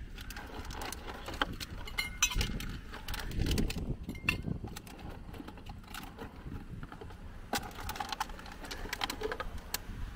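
Irregular clicks, clinks and knocks of drinks containers and the lid of a cool box being handled in an open car boot, over a steady low rumble.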